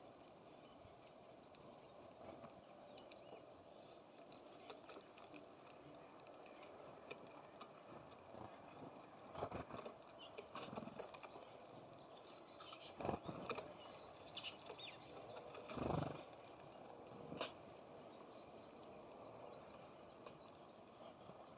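Small songbirds at a feeder giving short, high chirps scattered throughout, with a few louder thumps around the middle.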